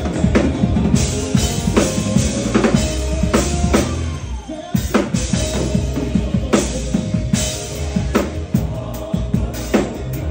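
Drum kit played live and hard: fast kick, snare and tom strikes with crashing cymbals, and a short break about four and a half seconds in before the cymbals crash again.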